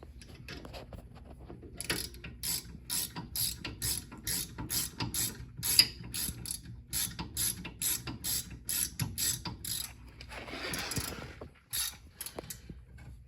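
Hand socket ratchet clicking at about three clicks a second as it runs the brake caliper bolts back in, left loose rather than tightened. A short scraping rush and a few more clicks come near the end.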